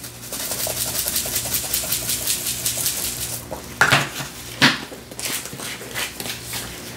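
A plastic seasoning shaker shaken quickly over a bowl, the granules rattling in rapid strokes for about three seconds; then two sharp clicks as the lid is snapped back on.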